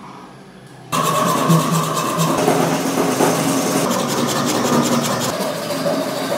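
A power tool with a spinning blade cutting into a wooden block held in a bench vise. Its motor comes on suddenly about a second in and runs steadily and loudly through the cut.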